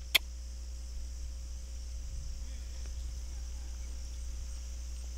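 Steady high-pitched insect chorus from the field, with a low steady rumble beneath it. One sharp click right at the start.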